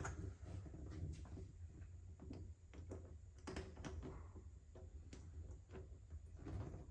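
Faint scattered clicks and light knocks of small metal parts being handled as a cam lock's latch plate is fitted onto the lock body, over a low steady hum.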